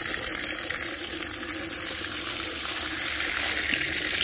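Water gushing steadily from an outdoor frost-free hose bib and splashing onto dry leaves, with a hand put into the stream near the end. The line is being flushed of discolored, sediment-laden water after a bladder pressure tank replacement.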